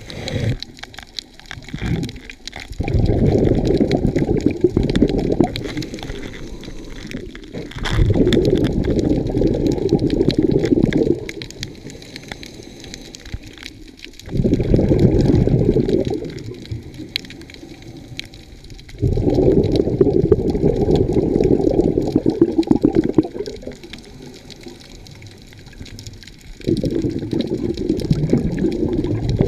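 Scuba diver's breathing heard through an underwater GoPro housing: exhaled bubbles from the regulator rumble past in five long bursts, each two to four seconds, about every six seconds, with quieter pauses between them for the inhales.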